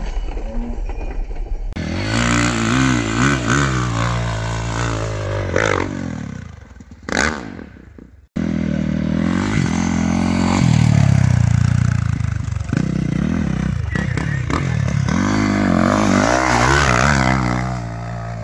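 Dirt bike engines revving up and down as the bikes ride and climb a dirt hill, the pitch rising and falling with each burst of throttle. The sound breaks off briefly about eight seconds in, then the engines pick up again.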